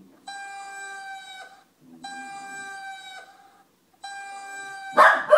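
High, steady whine of an RC electric ducted-fan jet, heard in three bursts of about a second each with short gaps. About five seconds in, a dog breaks in loudly and starts to howl, its pitch wavering and falling.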